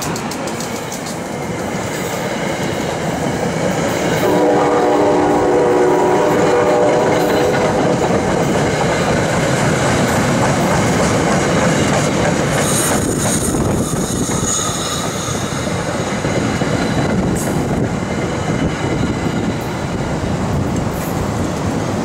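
SEPTA Comet I passenger coaches of an electric push-pull train rolling past close by, their wheels clicking over the rail joints. A horn sounds one long multi-tone blast of about three seconds, starting around four seconds in. There is a brief high squeal about halfway through.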